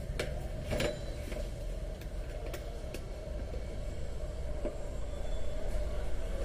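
Handling of a plastic alarm clock's casing: scattered light clicks and knocks, several in the first three seconds, over a steady low hum.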